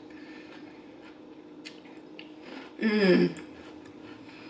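Quiet chewing of Caesar salad with a few faint mouth and fork clicks. About three seconds in comes one brief voiced 'mmm' from the eater.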